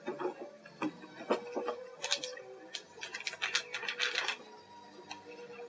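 Packaging rustling and crackling as parts are taken out of a vacuum cleaner's box, with a dense run of crinkles and clicks from about two to four seconds in.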